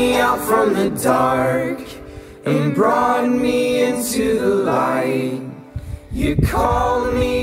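Background music carried by singing voices in a choir-like, a cappella style, with two short breaks between phrases.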